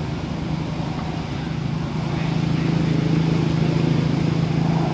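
A motor engine running steadily with a low hum, growing a little louder about two seconds in.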